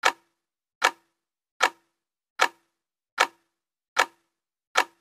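Countdown intro sound effect: sharp clock-like ticks, each with a short low ring, evenly spaced about one every 0.8 seconds, one tick for each number counted down. Seven ticks.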